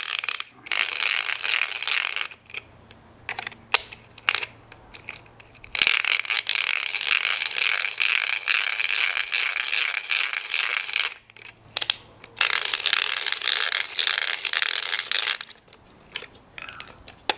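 Stripped plastic gears in a toy solar helicopter's hand-cranked gearbox rattling and clicking as the crank is spun fast, in three spells with short pauses between. The ratchety skipping is the sign of gear teeth stripped by cranking the motor hard as a generator.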